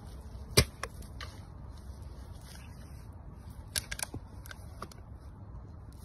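Several sharp clicks and knocks, the loudest about half a second in and a quick cluster around four seconds, over a low steady rumble.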